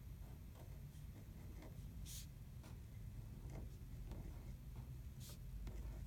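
Pencil writing on paper as a name is written out: faint short strokes, with a couple of sharper scratches about two and five seconds in.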